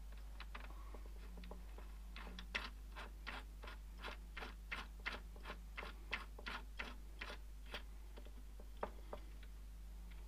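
Light clicks of the HDMI camera being turned and seated on the microscope's trinocular camera port, about three a second for several seconds, with a few scattered clicks before and after. A steady low electrical hum runs underneath.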